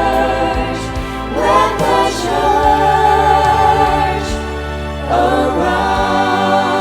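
A choir singing a Christian worship song, holding the word "church" as one long note. The chords change about a second and a half in and again about five seconds in.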